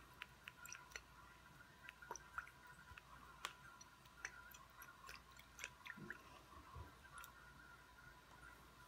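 Glass jar shaken by hand, giving faint, irregular small clicks and a couple of soft knocks.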